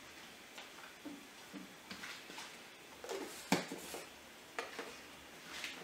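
Kitchen handling sounds: scattered light clicks and knocks of plates, a knife and a peanut butter jar being moved on a countertop, with the sharpest knock about three and a half seconds in.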